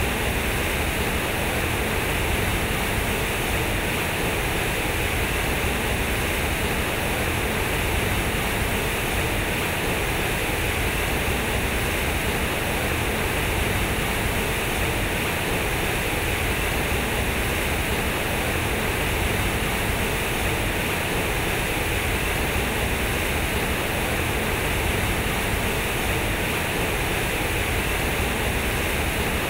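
Water from a large concrete fountain cascading out of square tubes and splashing into its pool, a steady rushing with no breaks.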